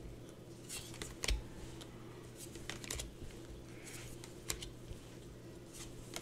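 Tarot cards being picked up and laid down on a cloth-covered table: soft, scattered taps and slides of card stock, a few seconds apart.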